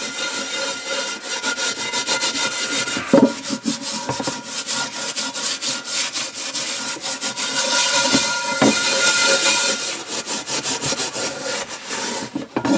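Steel wool pad scrubbing the bottom of a cast iron skillet in rapid back-and-forth strokes, loosening crud that oven cleaner has softened while stripping the pan.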